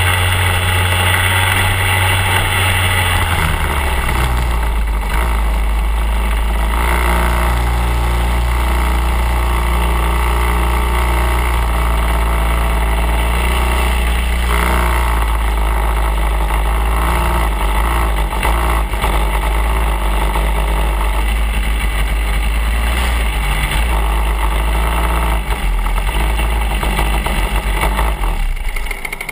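PRD two-stroke TaG kart engine running at low revs as the kart slows and rolls to a stop, its note dropping lower a few seconds in, then the engine cuts off near the end.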